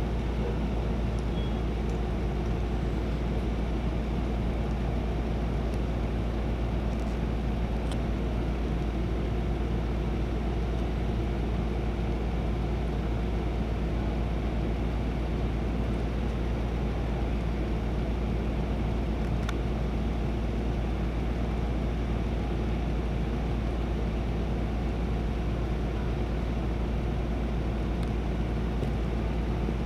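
Parked fire truck's diesel engine idling, a steady, unbroken low rumble.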